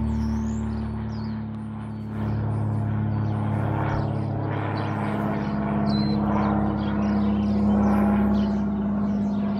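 Small single-engine propeller plane flying overhead, a steady low engine-and-propeller drone that gets louder as it comes closer. Small birds chirp over it.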